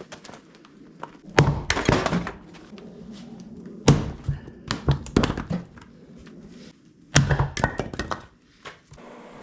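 Heavy thunks of wood being struck: three big hits about two and a half to three seconds apart, each followed by a short clatter of smaller knocks.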